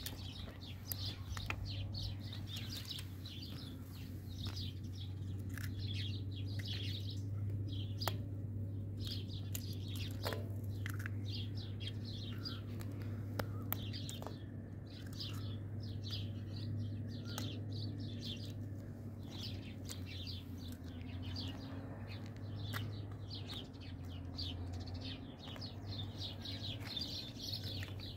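Small birds chirping continuously in quick, overlapping calls, over a steady low hum, with a few sharp clicks.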